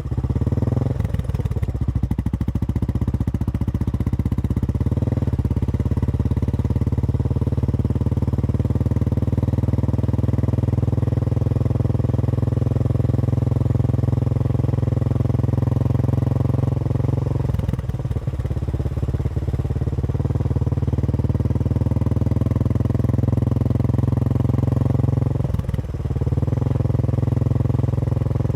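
Royal Enfield Bullet motorcycle's single-cylinder engine running steadily while riding, its engine note dipping briefly twice in the latter half.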